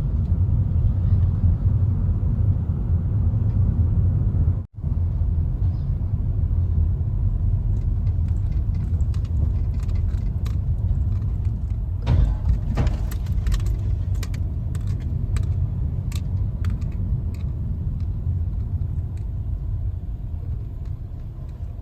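Steady low road rumble inside a moving car's cabin, with a run of small jangling clicks in the middle.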